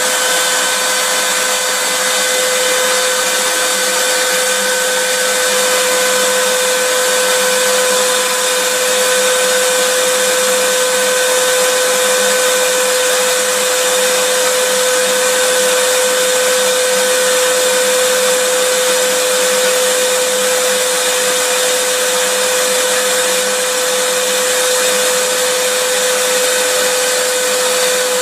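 Vacuum cleaner running steadily: a constant motor whine over an even rushing hiss, with no change in pitch or level.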